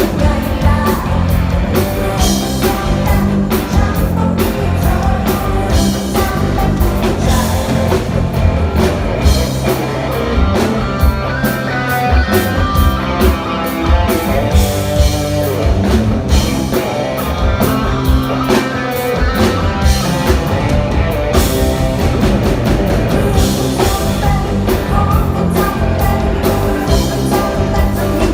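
Live band playing rock music through a PA, with drum kit, guitar and bass.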